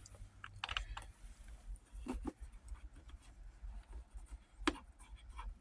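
Scattered light clicks and rubbing from hands handling small screws and plastic console trim, a few separate ticks spread across it with a sharper click near the end.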